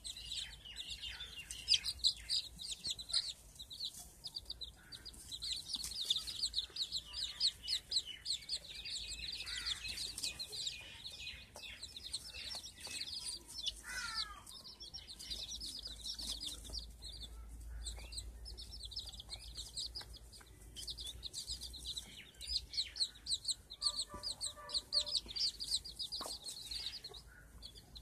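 A brood of young chicks peeping steadily in a dense stream of short, high notes, with a hen giving a few lower clucking calls near the end.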